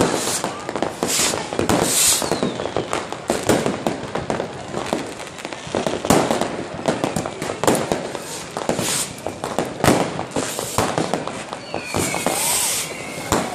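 Many fireworks and firecrackers going off at once: an unbroken, irregular barrage of bangs and crackling. Near the end a whistle falls in pitch.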